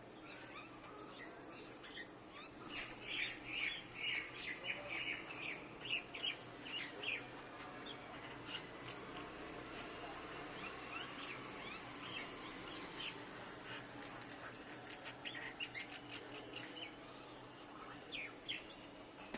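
Small birds chirping and squawking in quick runs of short, high calls, busiest in the first third and again near the end.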